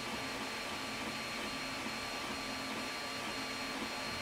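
Creality Ender 3D printer printing: its stepper motors whir, their pitch shifting as the print head and bed move. Underneath runs the steady whine of its cooling fans.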